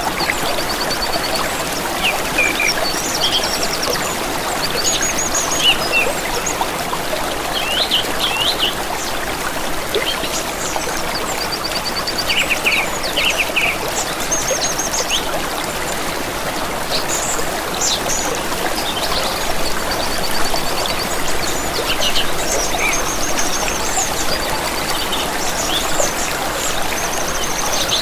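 A stream trickling and rushing steadily, with several small birds chirping and giving short rapid trills over it throughout.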